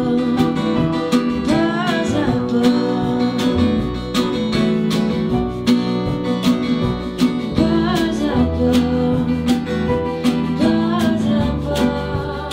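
Folk ensemble playing an instrumental passage with no singing. An acoustic guitar is strummed in a steady rhythm while a cello and a violin play long bowed lines with some sliding notes.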